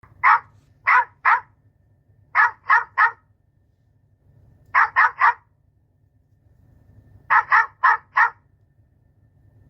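A dog barking in quick bursts: three short barks, then three, then three, then four, with pauses of a second or more between bursts.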